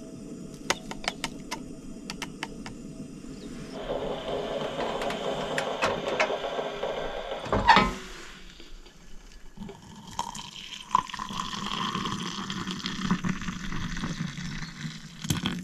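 A few light ticks as instant coffee is emptied from a stick packet into a stainless Thermos mug, a sharp knock about halfway through, then hot water poured from a gooseneck kettle into the mug, its pitch rising slowly as the mug fills.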